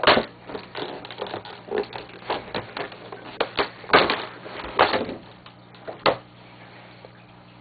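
Irregular clicks, taps and knocks with light scraping from a small computer tool kit and its case being handled; the sharpest knocks come in a cluster about halfway through.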